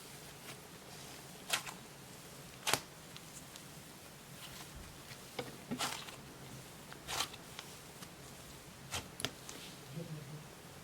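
Cloud cream slime with foam beads being played with by hand: scattered short pops and clicks, about seven in all, over a faint room hum.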